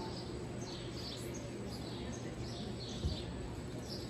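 Small birds chirping again and again, short high falling chirps, over a steady low hum; one low thump about three seconds in.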